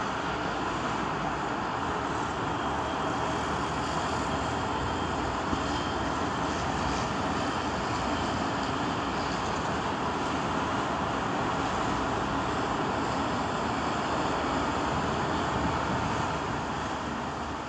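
Steady street ambience: a continuous wash of road traffic noise with no distinct events.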